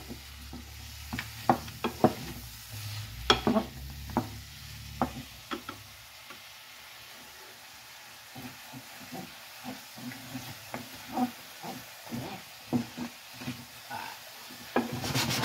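Shrimp and vegetables sizzling in oil in a skillet while a wooden spatula stirs them, with irregular knocks and scrapes of the spatula against the pan.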